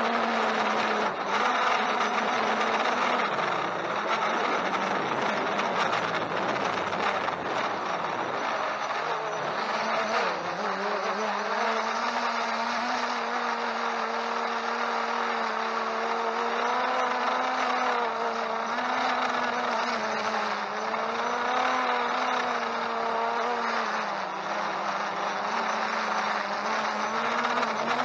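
Holystone HS700D quadcopter's motors and propellers whining steadily, the pitch wavering up and down as the drone works against gusty wind.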